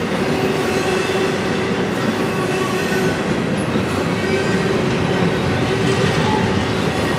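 Double-stack container cars of a freight train rolling past close by: a steady rumble and clatter of wheels on rail, with a thin steady whine over it.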